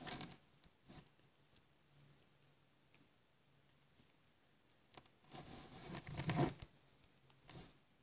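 Budgerigar husking seeds from a palmful of seed: scattered small crisp clicks, with louder scratchy, crackling bursts at the start and from about five to six and a half seconds in.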